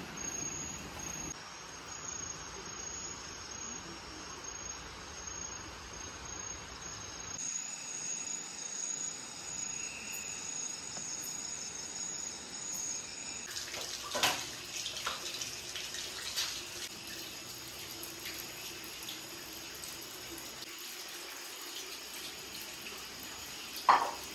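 Night forest ambience: a steady high insect drone over a continuous rushing hiss like running water. A few sharp knocks come in the second half, the loudest near the end.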